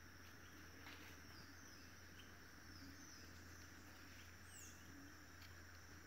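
Faint forest ambience: a steady high-pitched insect drone, with a few short, faint chirps scattered through it.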